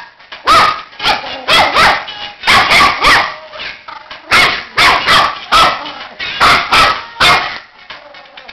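Border terrier puppy barking repeatedly: about a dozen sharp, high barks in quick runs of two or three, with short pauses around the middle and near the end.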